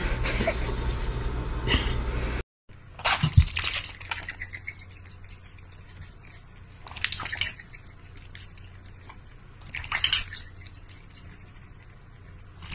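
A steady low hum with small clicks for about two seconds, then a brief silence. After it, a cat laps water from a stainless steel bowl, with three louder splashes about three to four seconds apart.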